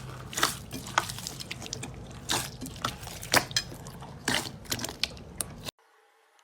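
Slime being squeezed and worked by hand, a dense run of irregular wet clicks, pops and crackles that cuts off suddenly near the end, leaving only faint ticks.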